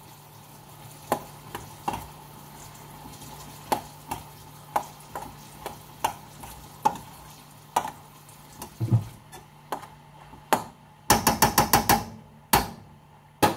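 Cooking utensil knocking against a metal pot or bowl while food is stirred and handled: scattered light clinks, then a quick run of about seven near the end, over a faint steady low hum.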